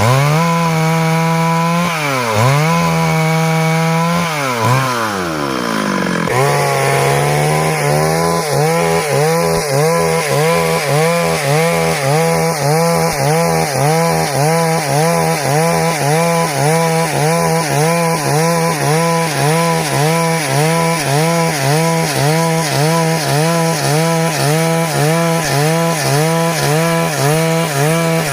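Stihl MS 382 two-stroke chainsaw running at high revs while cutting wood. Its pitch dips sharply and recovers several times in the first six seconds, then holds steady with a regular wobble about twice a second.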